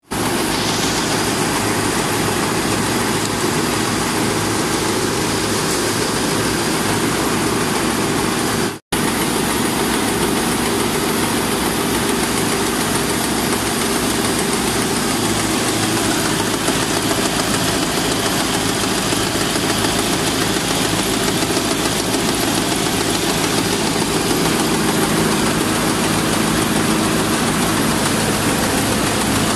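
Rice mill hulling palay, running steadily: a loud, even engine-driven machine din. It cuts out for an instant about nine seconds in.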